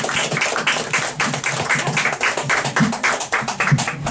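Small audience applauding, a dense run of hand claps.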